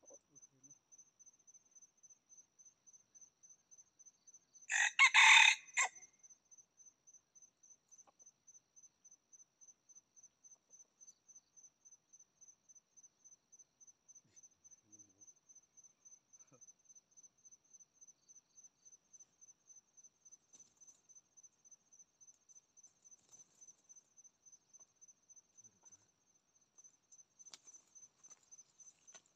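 A rooster crows once, a short loud crow about five seconds in, over an insect's faint, high, evenly pulsing chirp.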